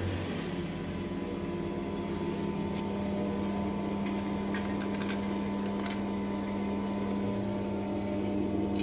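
Small electric screw oil expeller running while pressing seeds: a steady motor-and-gearbox hum with a low drone, a few light clicks, and a high hiss coming in near the end.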